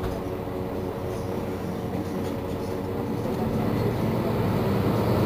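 Mercedes-Benz Citaro C2 city bus's rear engine idling at a standstill: a steady, even drone that grows louder after about three and a half seconds.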